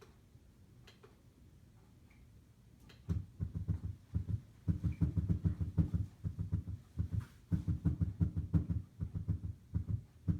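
Simulated atrial fibrillation heart sounds played on a SAMII simulator: fast, irregular low thumping in uneven clusters with no clear lub-dub rhythm, starting about three seconds in after a few faint clicks.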